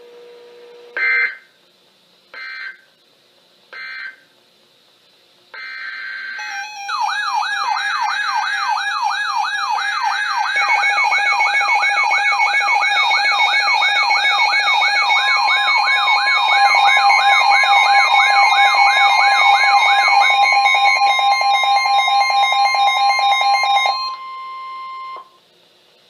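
Three short digital data bursts of an Emergency Alert System SAME header, then several weather alert radios sounding their alarms at once. The result is a loud overlap of rapidly warbling siren tones and electronic beeps. About halfway through, the steady National Weather Service 1050 Hz warning tone joins in, and everything cuts off near the end.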